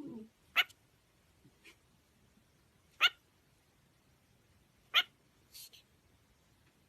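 Kitten giving short, high-pitched squeaky mews, three clear ones about two seconds apart with fainter chirps between, and a brief low sound at the start.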